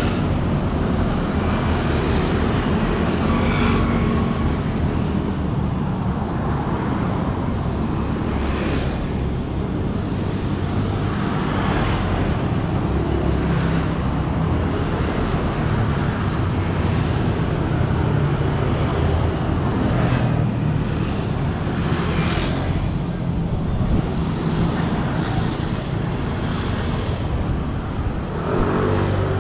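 Steady city road traffic: a continuous low engine and tyre rumble, with a few vehicles swelling louder as they pass.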